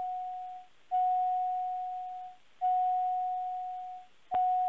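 Electronic warning tone in the aircraft's intercom audio: one steady mid-pitched tone that sounds for about a second and a half, stops briefly and repeats, each tone starting sharply and fading. A sharp click sounds near the end.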